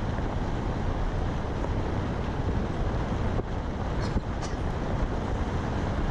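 Steady low rumble of a moving vehicle, with wind on the microphone and a few faint clicks about four seconds in.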